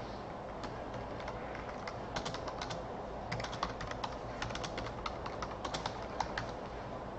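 Typing on a computer keyboard: irregular runs of quick key clicks with short pauses between them, thickest from about two seconds in to near the end.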